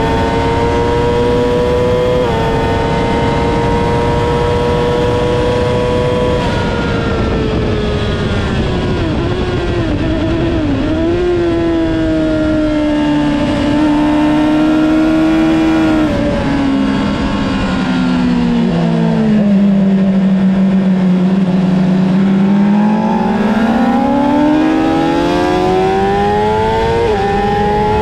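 2008 Honda CBR600RR's inline-four engine at high revs with heavy wind rush. About 6 s in the revs drop and waver in quick dips as the rider brakes and shifts down into a corner. The pitch then holds steady, sinks to its lowest around two-thirds of the way through, and climbs again as the bike accelerates hard out onto the straight.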